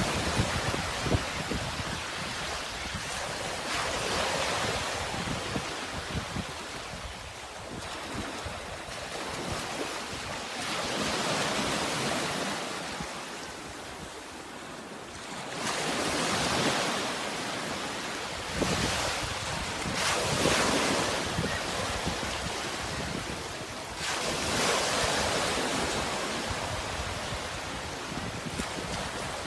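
Sea waves washing in and breaking, the surf swelling and ebbing every four to five seconds, with wind rumbling on the microphone.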